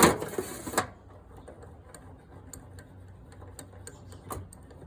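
Small metal drill press chuck parts being handled, clicking and knocking: two sharp knocks in the first second, then scattered faint ticks and another knock near the end.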